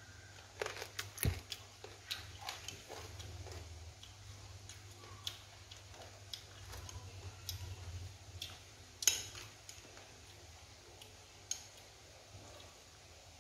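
Chopsticks clicking and scraping against a stainless-steel stockpot and the bird inside it as a whole boiled bird is turned in its cooking water: scattered light knocks, the sharpest about nine seconds in.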